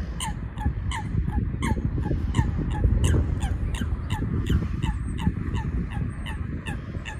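A bird calling in a steady series of short, downward-sliding notes, about three a second, over a steady low rumble. Faint thin high whistles come in near the end.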